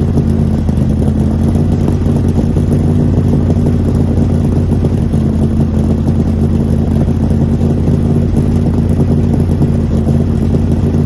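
Shelby Cobra CSX1000's 427 cubic-inch V8 idling steadily through its side exhaust pipes while it warms up from a cold start. There are no revs: the engine holds an even, unchanging idle.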